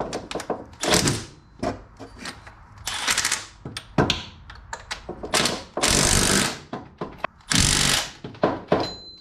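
Metal tools and parts clattering and knocking while bracket bolts are fitted, with two short runs of a power tool driving the bolts, about six and eight seconds in.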